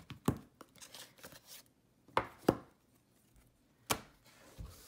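Tarot cards and their cardboard box being handled and set down on a wooden table: about four sharp taps and knocks, with softer clicks between them.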